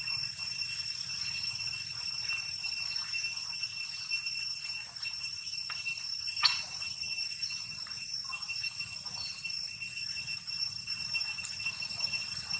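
A steady high-pitched drone held on one note with higher overtones, with one sharp click about halfway through.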